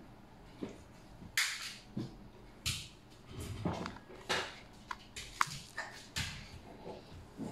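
Handling noise from a plastic power bank and a USB cable: irregular rustles and light clicks, with a sharp click a little past the middle as the USB plug is pushed into the port.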